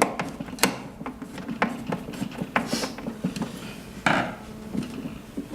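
Scattered light clicks and knocks of a screwdriver and small parts being handled on the heat press cover, with a short scraping rub about four seconds in.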